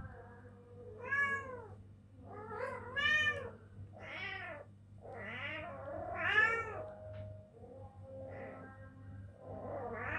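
Two-week-old kittens mewing: about eight high, arching mews, some overlapping as more than one kitten calls at once.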